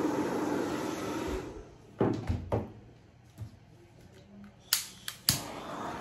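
Hairdryer blowing, switched off about a second and a half in, then set down with a couple of knocks. Near the end a handheld torch is clicked three times to light, and its flame then hisses steadily.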